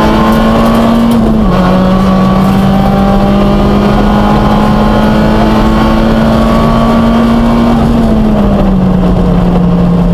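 Peugeot 106 rally car's engine heard from inside the cockpit, pulling hard at high revs. Its pitch drops abruptly about a second and a half in at an upshift, climbs slowly as it accelerates in the next gear, then falls away gradually near the end as the driver eases off.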